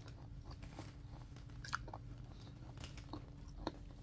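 A person eating nasi lemak: faint chewing and mouth sounds with a few small clicks, over a low steady hum.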